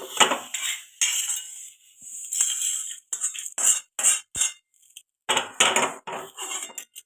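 Metal utensil scraping and clinking against a kadai as dry-roasted whole spices are taken off, a run of short scrapes that turn into separate strokes about halfway through.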